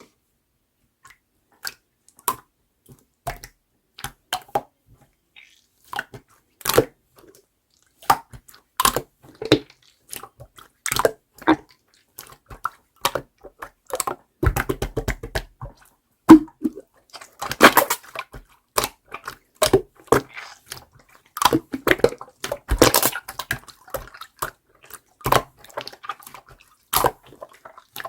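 Clear slime being squished and pressed by hand, making irregular wet clicks and pops, sparse at first and then in quicker, denser runs of popping air bubbles from about halfway on.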